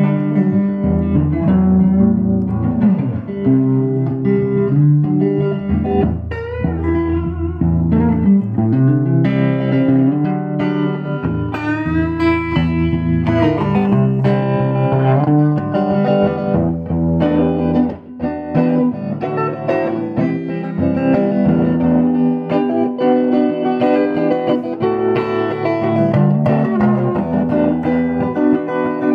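Background music led by a guitar, with a bass line under it and bent notes about twelve seconds in.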